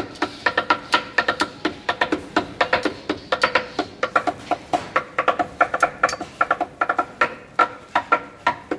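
Kokoreç being chopped on a wooden board with steel knives: a fast, rhythmic clatter of sharp strikes, several a second, each with a short metallic ring.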